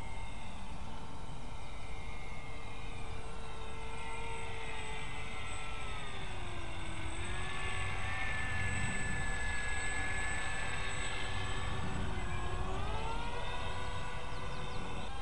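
Electric motors and counter-rotating propellers of a 40-inch Depron push/pull tandem twin RC plane whining as it flies past, the pitch dropping twice as it passes, about six seconds in and again about twelve seconds in, then rising as it comes back. A low rumble of wind on the microphone underlies it.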